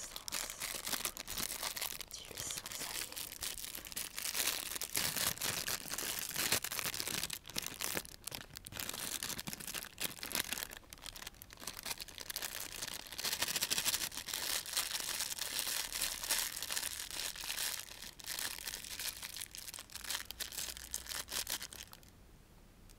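Plastic packaging crinkling and rustling close to the microphone, with rapid small crackles and a few tearing sounds, as a packet is handled over the food; it stops about a second before the end.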